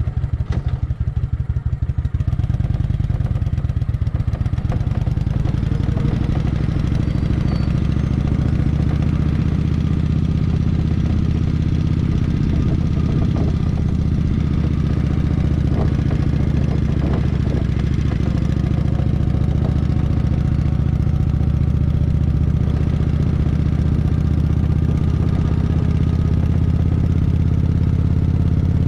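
Kawasaki Vulcan 900's V-twin engine running steadily with a level, unchanging pitch. Its separate firing pulses stand out for the first couple of seconds.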